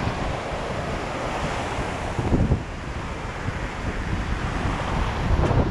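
Surf washing up the beach, with wind buffeting the microphone, and two louder low rushes, about two seconds in and near the end.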